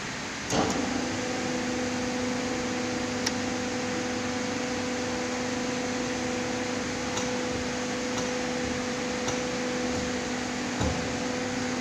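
Press brake's hydraulic pump motor starting about half a second in, then running with a steady two-pitched hum. A few faint clicks and a soft thump near the end come from the control buttons.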